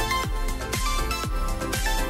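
Background electronic music with a steady kick-drum beat about twice a second under held synth tones.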